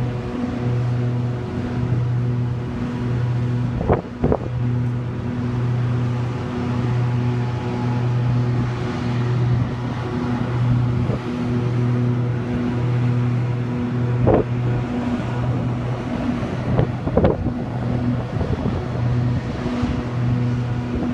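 Heavy diesel machinery of a land drilling rig running under load while the mast is lowered: a steady low drone that throbs regularly about once a second. A few brief louder noises cut across it, with wind on the microphone.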